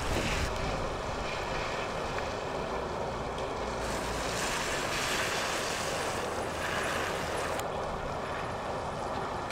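1950 Dodge Meadowbrook, a 103 hp single-barrel inline-six sedan, driving slowly past on wet pavement: tyres hissing through standing water over the engine's low running note, with the hiss swelling in the middle of the pass.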